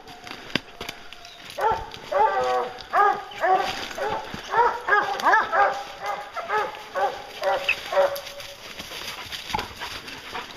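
A pack of English hounds baying, several dogs calling over one another in quick succession, about two or three bawls a second. The baying starts about a second and a half in and dies away near eight seconds in.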